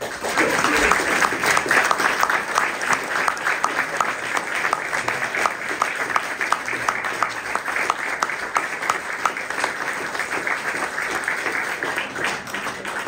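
Audience applauding: many hands clapping steadily, starting suddenly and tapering off near the end.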